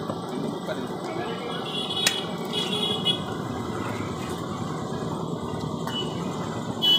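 Butcher's cleaver chopping a lamb's head on a wooden log block: three sharp chops, two about a second apart a few seconds in and a louder one near the end, over steady street traffic noise.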